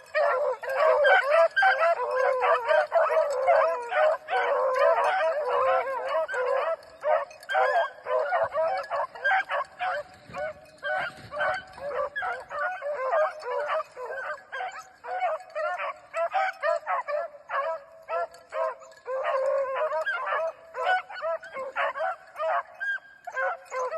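A pack of beagles baying in full cry on a rabbit's track, many voices overlapping. The calls are densest for the first several seconds, then come as more separate barks and howls.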